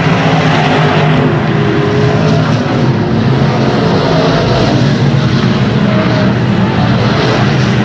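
Stock car racing engine running hard at speed, a loud, steady drone with no let-up.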